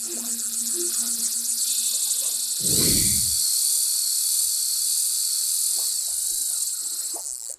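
Intro sound effect: a loud, high-pitched buzzing hiss with a fast rattling texture, joined about three seconds in by a deep whoosh that falls in pitch. The hiss cuts off suddenly at the end.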